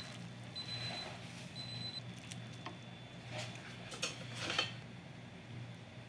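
Quiet kitchen handling as noodles go into a bowl of broth and metal tongs lay a pork slice on top: a few soft taps and rustles in the second half, over a steady low hum.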